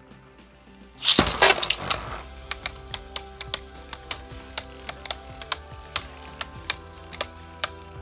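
Two 3D-printed Beyblade spinning tops launched into a plastic stadium about a second in with a loud burst of scraping clatter, then spinning and clashing with sharp clicks a few times a second.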